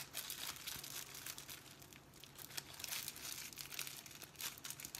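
Clear plastic wrapping crinkling and crackling as fingers pick and pull at it to get it open, in irregular small crackles with a few sharper ones.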